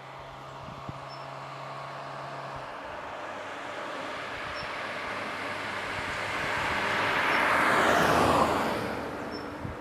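A road vehicle passing by: its tyre and engine noise builds gradually, peaks about eight seconds in with a falling pitch as it goes past, then fades away.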